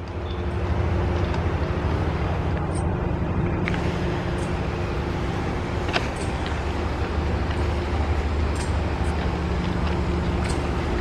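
Diesel engine of a CC 201 diesel-electric locomotive running with a steady low throb, growing louder over the first second. A few faint clicks sound over it.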